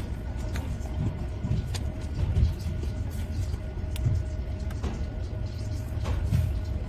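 Steady low rumble with a faint constant hum, and a few scattered light clicks as small plastic Mega Construx mini-figure pieces are pressed together by hand.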